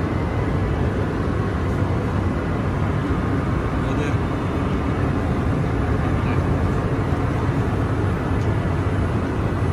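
Steady cabin noise of a Boeing 787 in cruise: the even rush of airflow and engine noise inside the aircraft, heaviest in the low range, holding constant without change.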